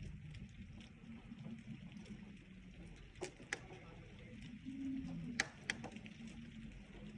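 Light rain falling steadily and faintly, with a few sharp ticks, two about three seconds in and two about five and a half seconds in.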